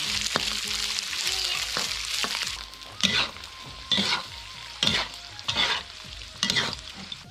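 Slices of cured pork sizzling in a wok as they are stir-fried. After about two and a half seconds the sizzle eases, and a metal spatula scrapes across the wok about once a second.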